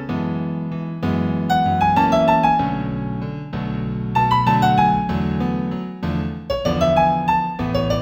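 Piano music in A major at a moderate tempo of about 96 beats a minute: a melody of struck notes over held low chords.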